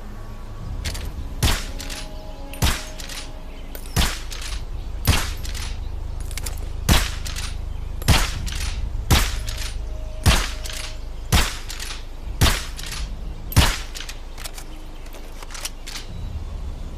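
Pistol shots fired one at a time, about one a second, eleven shots in all, over a steady low rumble.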